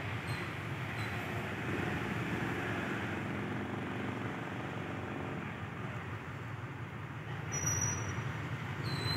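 Diesel locomotive hauling an approaching passenger train, heard as a steady low engine rumble. A brief high chirp comes near the end.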